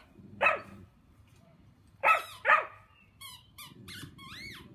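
Dog barking in play: three short sharp barks, one about half a second in and two close together about two seconds in. Fainter high chirping calls follow near the end.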